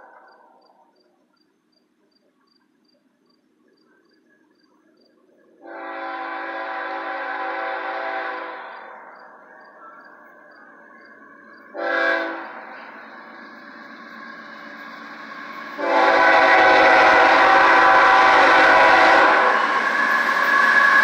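Horn of a CSX GE ES44AH diesel locomotive blowing the grade-crossing pattern. One long blast trails off at the start, a second long blast comes about six seconds in, a short one about twelve seconds in, and a final long blast starts about sixteen seconds in. The low rumble of the approaching locomotives and train joins that last blast, which is the loudest part.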